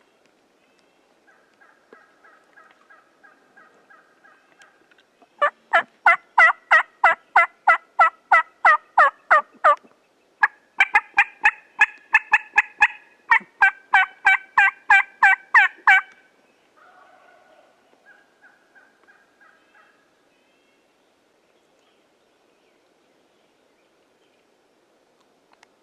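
Turkey yelping: two long runs of loud, rapid yelps, about three to four a second, each lasting about five seconds. Softer calls come before and after the runs.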